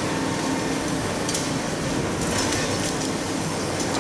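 Demolition excavator's engine and hydraulics running steadily while its crusher works a reinforced-concrete building, with a few sharp clinks of breaking concrete and debris.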